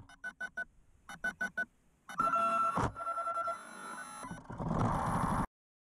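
Horror-film sound design: two quick groups of four short electronic pulses, then a dense, buzzing texture with ringing tones and a sharp crack about three seconds in. It cuts off abruptly to silence.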